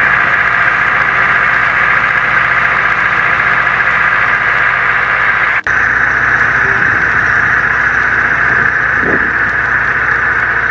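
A loud, steady mechanical drone like a running engine, with a low hum beneath. It breaks off for an instant about five and a half seconds in and then carries on much the same.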